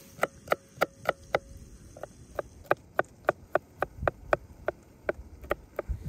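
Kitchen knife chopping garlic cloves on a wooden cutting board: a steady run of sharp knocks, about three a second, with a short pause about a second and a half in.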